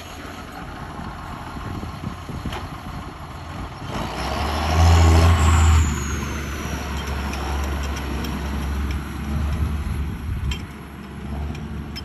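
John Deere farm tractor with a front loader running and driving close past, loudest about five seconds in with a deep engine hum, while a high whine falls in pitch as it goes by; the engine then carries on more quietly as the tractor moves away.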